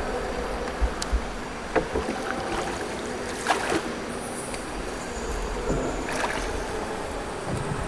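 A bamboo raft being poled along a cave river: water sloshing around the pole and raft, with a few sharp knocks of the pole.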